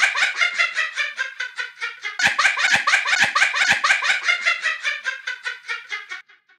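Electro swing loop played from the Launchpad for iOS app: a fast, stuttering run of short repeated notes at about five a second, with four deep beats about half a second apart a little past two seconds in. It fades and stops about six seconds in.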